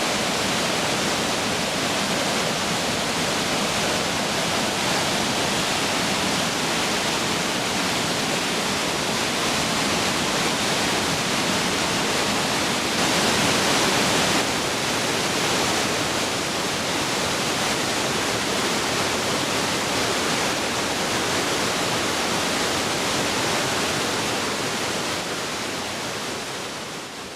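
Steady rushing of a waterfall, with a brief louder swell about halfway through, fading out near the end.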